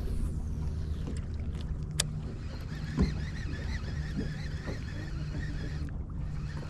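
Boat engine idling with a steady low hum, with a few sharp clicks and a single knock about three seconds in.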